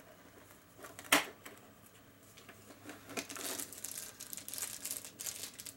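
Advent calendar packaging being opened: a single sharp click about a second in, then a small wrapper crinkling and tearing as the figure inside is pulled out and unwrapped.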